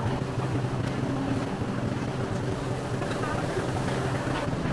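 Street-market ambience: a steady low mechanical hum with indistinct chatter of people in the background.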